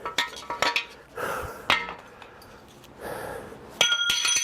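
Hammer blows on the metal of a seized 350 Chevy small-block, driving out pistons whose rings are stuck: a few sharp clinking strikes in the first two seconds, then one hard strike near the end that rings on like a bell.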